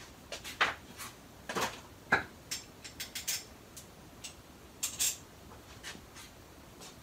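Scattered light metallic clinks and taps, a dozen or so at uneven intervals, one of them ringing briefly, from the just-removed idler pulley bracket and its bolts being handled.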